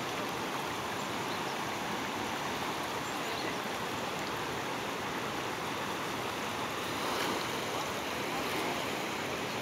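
Fast mountain river rushing steadily through shallow rapids, a continuous even roar of water that swells slightly about seven seconds in.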